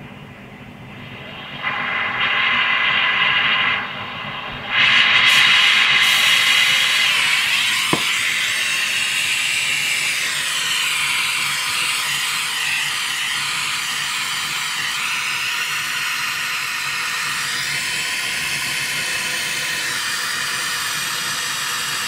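Gas brazing torch flame hissing steadily while a joint on a refrigerator compressor is brazed with silver brazing rod. The hiss jumps louder about two seconds in, dips briefly around four seconds, then comes back stronger and holds steady.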